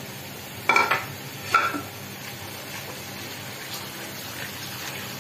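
Sliced onions and whole spices sizzling steadily in hot oil in a karahi as they are stirred, with two sharp, ringing clatters against the pan a little under a second apart, about a second in.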